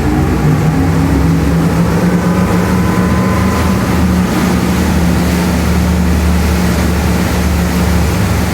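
Mercury 600 HP V12 Verado outboard engines running a boat under way. The engine note rises over the first two seconds, then holds steady, over a rush of wind and water noise.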